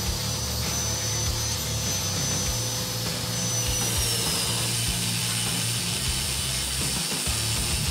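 Angle grinder cutting metal: a steady high whine that drops in pitch about four seconds in, as the disc starts to cut.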